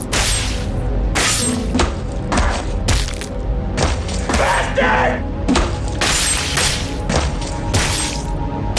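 Lightsaber sound font: the blade's steady electric hum with a run of sharp clash hits, about one a second, and a pitched swing sweep near the middle.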